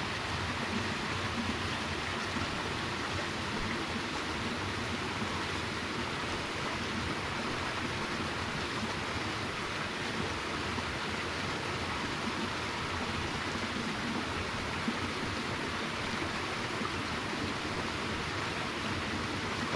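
Small stream flowing steadily, an even rush of water, with one brief knock about three quarters of the way through.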